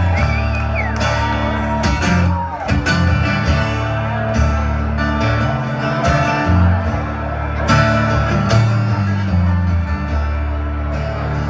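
Live rock band playing, with electric guitars, bass and drums on a steady beat.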